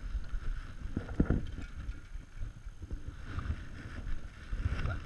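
Action-camera handling noise: irregular rubbing and knocks on the microphone as the camera is picked up and moved, with the loudest knock about a second in.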